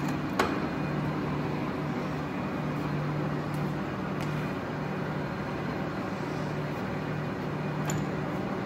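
1979 Daewoo-Ikegai 20x60 tool room engine lathe running with its spindle at about 220 rpm: a steady geared hum with a low pulsing throb. A sharp click sounds about half a second in and a fainter one near the end.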